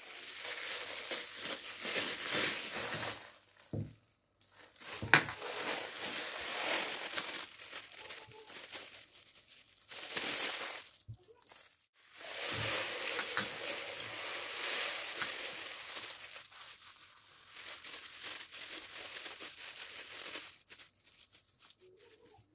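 Plastic bags crinkling and rustling as dried herbs and seeds are poured from them into glass jars, in several stretches with short pauses between, and a few sharp clicks.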